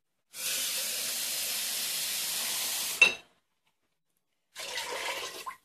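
Water poured from a jug into a stainless steel pressure cooker pot: a steady rushing pour that stops with a sharp clink about three seconds in, then a second, shorter pour near the end.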